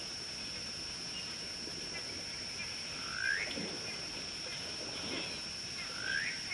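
Two short calls that sweep upward in pitch from an unseen wild animal, about three seconds apart, over a steady high-pitched hum.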